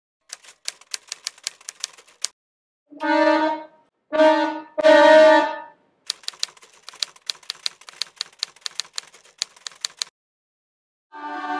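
Typewriter keys clacking in two runs of quick keystrokes, with three short held horn-like notes in between. Near the end a sustained chord of voices begins.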